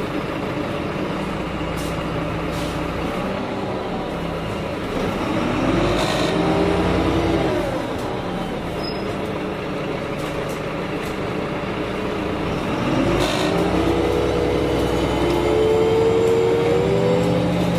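Karosa B951E city bus heard from on board, its diesel engine rising in pitch as the bus pulls away and accelerates, falling back about eight seconds in as the Voith automatic gearbox changes up. The engine climbs again in the second half and drops once more near the end.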